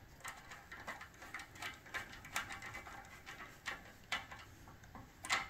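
Light, irregular metal clicks and scrapes of a hand nut driver turning a nut down onto a terminal stud over crimped ring terminals, with the loudest click shortly before the end.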